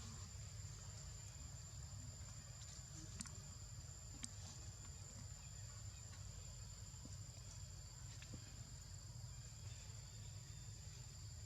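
Insects shrilling in a steady, high, unbroken drone, over a low rumble, with a couple of faint sharp clicks about three and four seconds in.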